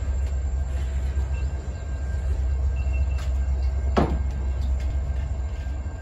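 BNSF local freight train of boxcars rolling away along the track, a steady low rumble, with one sharp knock about four seconds in.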